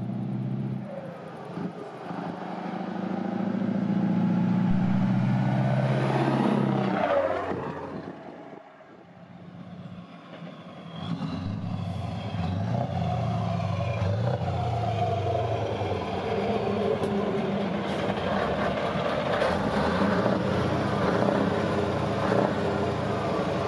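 Scania T530 V8 truck with open exhaust flaps driving past. The engine grows louder to a peak about six seconds in, falls away around eight to ten seconds, then runs steadily again.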